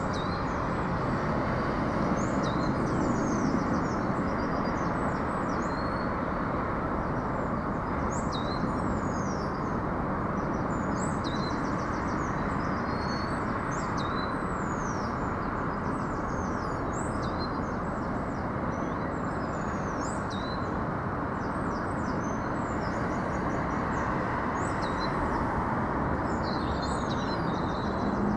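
Steady, unchanging rumble of background noise with no clear pitch, which the recordist presents as a disorienting low frequency noise, with small birds chirping and trilling repeatedly over it.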